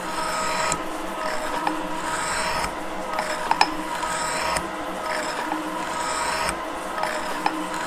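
Gould & Eberhardt metal shaper running, its ram stroking back and forth about once every two seconds as the tool cuts across a metal block, with a scraping, rasping sound of the cut and a few sharp clicks.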